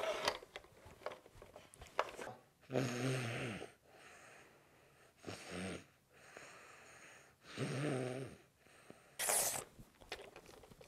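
A child's put-on snoring: three snores, each about a second long and a couple of seconds apart, with softer breaths out between them. A short, sharp hiss follows near the end.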